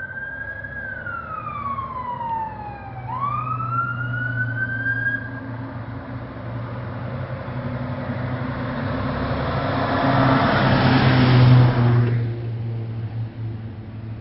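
Fire engine on a code 3 response: its electronic siren sweeps slowly up and down in a wail, then fades out a few seconds in. The truck's engine drone and a rush of road noise then build as it drives past, peak, and drop away abruptly near the end.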